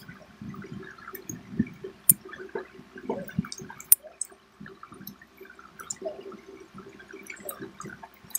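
Chewing and wet mouth sounds of people eating fried snacks by hand, with scattered sharp clicks and light taps.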